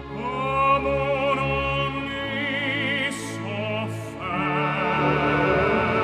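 An operatic tenor sings in French with a wide vibrato over an orchestra, coming in right at the start. There are two short hissing consonants about three and four seconds in.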